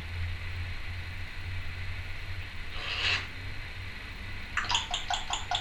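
Timneh African grey parrot making a short breathy, hissing sound about halfway through, then a quick run of clicks and short chirps near the end.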